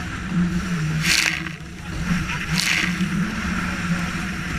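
Small motorboat (Yamaha SRV-20) running through choppy waves, its engine pitch wavering up and down. Two splashes of spray or wave slap against the hull come about a second in and again about two and a half seconds in.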